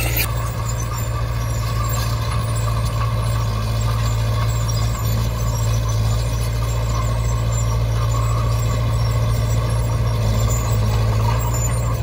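Heavy diesel engine of earthmoving machinery running steadily at constant speed, a deep even drone with no revving.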